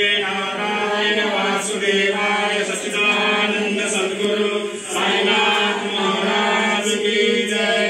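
Devotional aarti chanting: voices sing in long held notes that change pitch every second or two.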